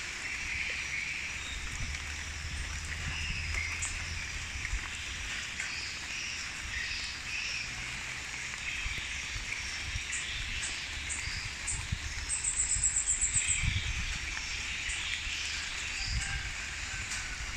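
Rural outdoor ambience: scattered bird and insect calls over a low rumble. About twelve seconds in, a rapid high trill of about eight pulses a second lasts just over a second.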